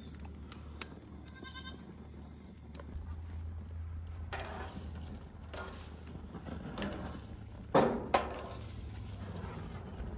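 A goat bleats once, briefly, about a second and a half in. Then junk mail burns on the grates of a gas grill with soft rushes of flame, and tongs knock sharply twice against the grill near the end.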